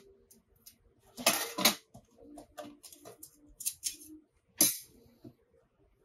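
Metal panels and plates of a B-6君 folding grill stove clicking and clinking as they are handled and slotted together. There are two loud clanks a little over a second in and another one later, with lighter ticks between them.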